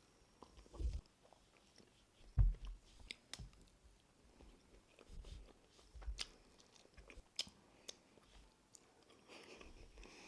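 A person chewing a mouthful of ugali with beef and sukuma wiki close to the microphone: soft, irregular mouth clicks and smacks with low thumps of chewing.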